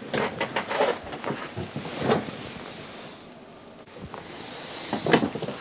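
Scattered small clicks and light rustling of handling on a workbench, then a brief soft hiss near the end.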